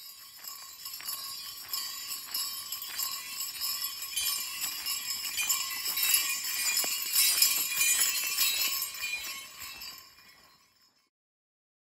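Small bells jingling with repeated shakes, swelling and then fading out about ten seconds in.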